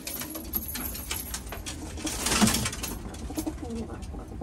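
Domestic pigeons cooing in a loft, with light scratching and rustling and a brief louder rustle about two seconds in.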